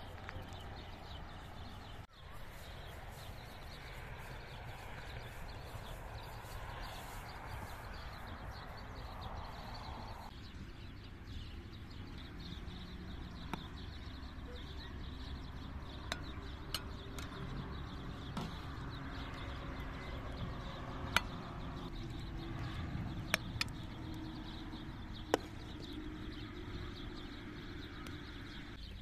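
Steady outdoor background with a low rumble, then from about ten seconds in a scattering of sharp clinks of a metal ladle knocking against a metal pot and a glass serving bowl as meatballs in sauce are ladled out, a few of them louder than the rest.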